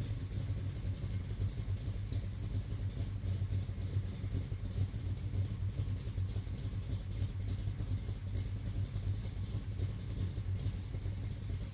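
Car engine idling through its exhaust, a steady low rumble with an even pulse. The idle is smooth now that its vacuum leak has been fixed.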